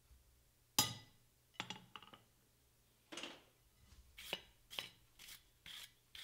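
A hammer blow on a maker's stamp held against a hot steel bar on the anvil, ringing briefly, about a second in, followed by a few lighter metal knocks. From about four seconds in comes a run of short scraping strokes, about two a second.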